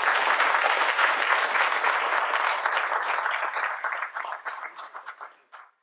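Audience applauding: steady clapping that thins out over the last couple of seconds into a few scattered claps, then stops.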